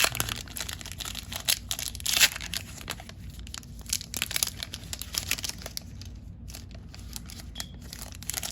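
Foil wrapper of a Pokémon trading card booster pack being torn open and crinkled, irregular crackling that is busiest in the first half, loudest about two seconds in.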